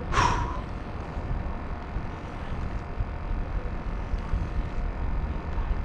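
Wind buffeting the microphone, a steady low rumble, with a short bright sound that falls in pitch right at the start.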